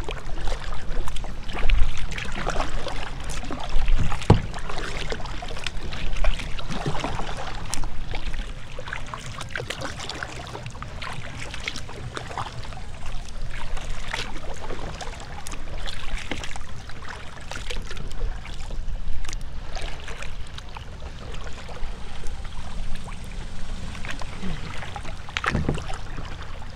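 Kayak paddle strokes, with water splashing and lapping at the hull in irregular swishes over a steady low rumble of wind on the microphone.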